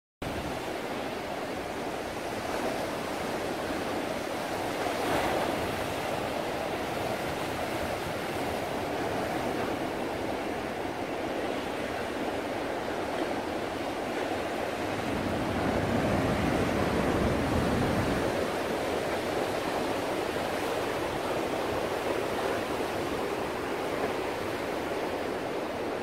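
Ocean surf: large waves breaking and washing in as a steady rush, with a fuller, louder surge of breaking water about two-thirds of the way through.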